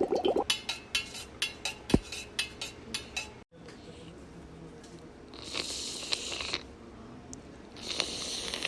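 A rapid run of small clicks and taps with one low thump among them, then, after a cut, two short hissing swishes.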